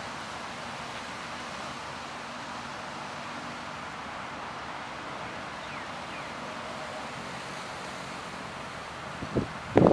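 Steady wind and water noise on the river as a storm comes in. Near the end come a few sudden loud bumps.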